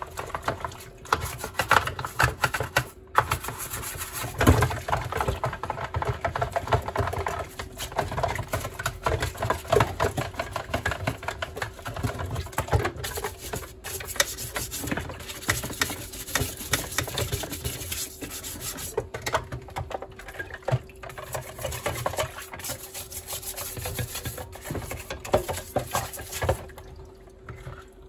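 Stiff washing-up brush scrubbing a plastic washing machine detergent drawer in a bowl of water: quick, irregular scratchy bristle strokes with water sloshing, easing off near the end.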